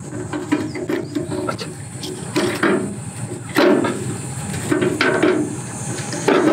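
A hot grilled oyster being pried open on a barbecue grill: its shell scrapes and knocks against the grate, with several sharp clicks. A steady sizzling hiss runs underneath.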